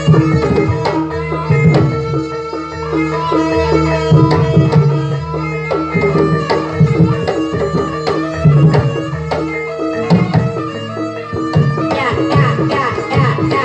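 Jaranan gamelan music: a kendang hand drum playing a busy rhythm over repeated struck pitched percussion and steady held tones.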